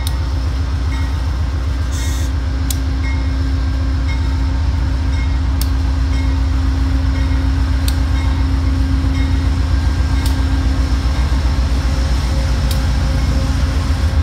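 GE Genesis diesel locomotive's engine running with a deep, fast-pulsing rumble and a steady hum as it pulls a passenger train slowly past, growing gradually louder. A few sharp clicks sound along the way.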